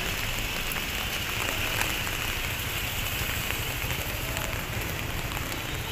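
Light rain falling on a wet street: a steady hiss of rain with scattered small drop ticks.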